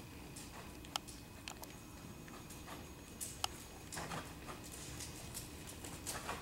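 Horse walking on soft sand arena footing, its hooves making scattered soft thuds and light clicks at an uneven pace.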